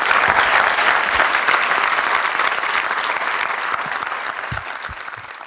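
Audience applauding: a dense, steady clatter of clapping that dies away near the end.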